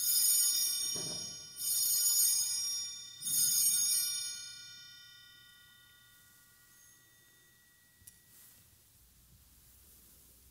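Altar bell struck three times, about a second and a half apart, each stroke ringing on and dying away over a few seconds: the bells rung at the elevation of the host during the consecration.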